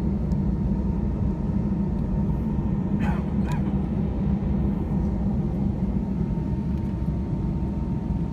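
Airbus A320-200 cabin noise while taxiing: a steady low rumble from the engines at idle and the airframe rolling, with a faint thin whine held throughout. A brief pitched sound comes twice about three seconds in.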